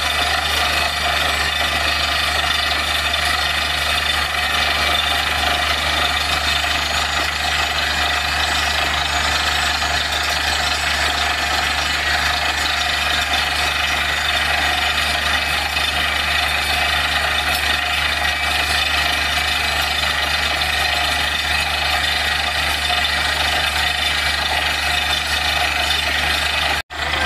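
Borewell drilling rig running steadily with a loud, even engine drone; the sound cuts out for a moment just before the end.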